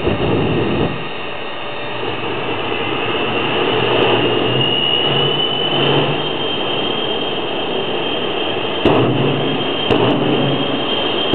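Twin turbine jet engines on a Chevy pickup truck running: a loud, steady rushing noise with a high whine that rises slightly about four seconds in and then holds. The noise jumps suddenly in loudness about nine seconds in.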